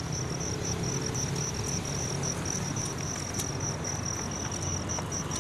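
Insects trilling: a steady, rapidly pulsing high-pitched chirr, over a low steady rumble, with a few faint clicks.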